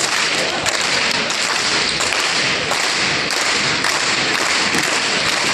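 Crowd noise filling a basketball gym, cut by a run of sharp taps and thumps at a fairly regular pace.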